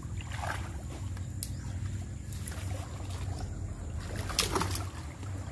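Steady low rumble with light splashing of water as men wade through a river, and a brief call from a voice about four and a half seconds in.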